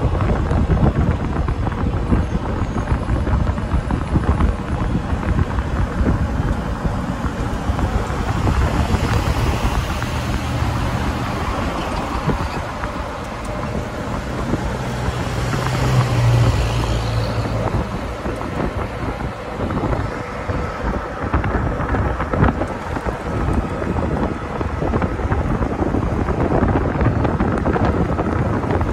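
Wind buffeting the microphone on a moving golf cart, over a steady rumble of tyres on the road. About halfway through, a pickup truck towing a trailer passes, swelling and then fading.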